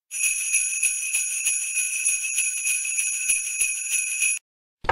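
Jingle bells shaken in a steady, even rhythm, ringing bright and high, cutting off suddenly near the end.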